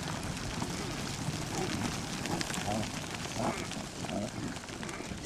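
A reindeer herd on the run: a dense crackle of hooves and many small clicks, with a few faint short calls.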